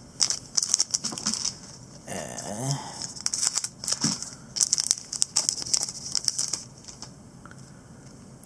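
Trading-card pack wrapper being torn open and crinkled in the hands: a run of sharp, irregular crackles for about six or seven seconds, then it goes quieter near the end.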